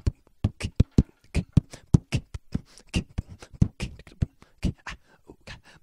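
A person beatboxing into a handheld microphone: a fast, steady run of mouth-made kick and snare strokes, about four to five a second.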